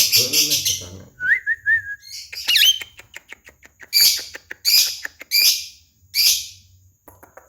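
Javan myna calling in a varied run: a harsh rasping call, a few short whistles and clicks, then four harsh rasping calls about 0.7 s apart.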